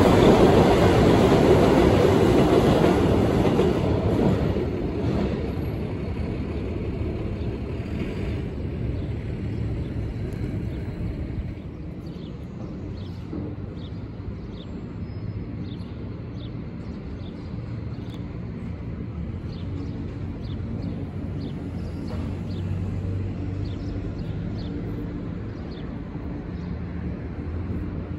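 Subway train running on the tracks, loud at first and fading over the first few seconds as it moves away, leaving a fainter steady rumble of distant trains and traffic.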